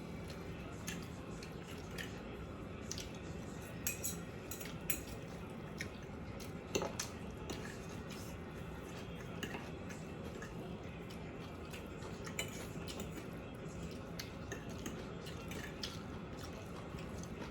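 Scattered clinks and scrapes of a fork against a plate during a meal, over a steady low room hum, with a few louder clinks about 4, 5 and 7 seconds in.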